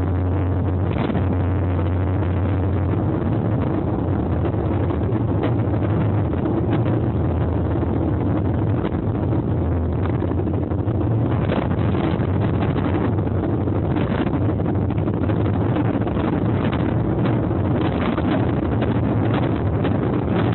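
Strong wind buffeting the microphone in a snowstorm: a steady low rumble with frequent short crackling gusts.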